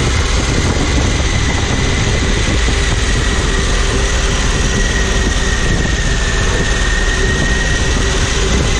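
Harley-Davidson Pan America's Revolution Max 1250 V-twin running steadily under way, mixed with road and wind noise, with a faint steady whine above it.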